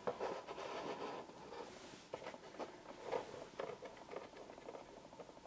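Stiff paper of a papercraft beckoning cat rustling and crackling in quick, irregular small clicks as it is handled and its paper arm is moved.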